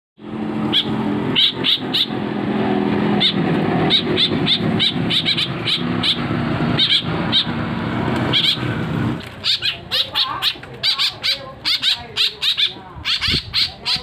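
Caged fledgling birds giving short, sharp begging calls over and over, coming thicker in the second half as they gape for food. A steady motor hum lies under the calls for the first nine seconds or so, then stops.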